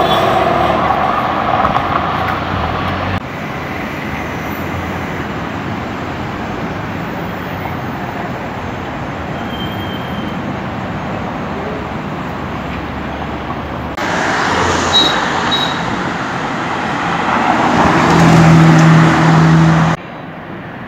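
Road traffic: cars driving past on a busy city road. Near the end a loud steady low engine note from a vehicle close by stands out above the traffic.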